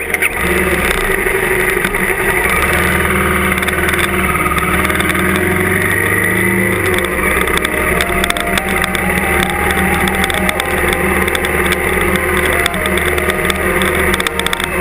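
Trail motorcycle engine running steadily under way on a dirt track, picked up by the bike's onboard camera; the engine note changes about seven seconds in.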